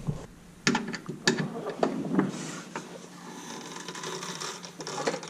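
Scattered metallic clicks and knocks, with some scraping, as a screwdriver pries at the rubber dogbone (engine torque) mount to work a stiff insert into it.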